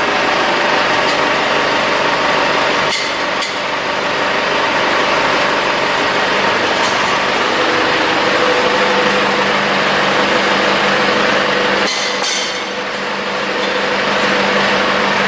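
Cummins QSNT-G3 six-cylinder diesel engine of a 300 kW generator set running steadily at constant speed, with a couple of brief knocks about three seconds in and again near twelve seconds.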